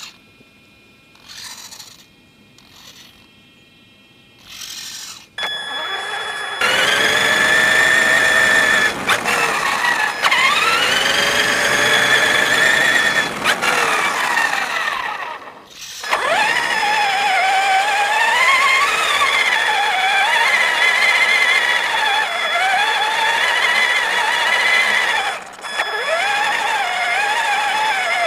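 Electric drive motor and gears of an RC monster truck whining. The pitch glides up and down with the throttle. It comes in short blips at first, then runs continuously from about five seconds in, with two brief drops.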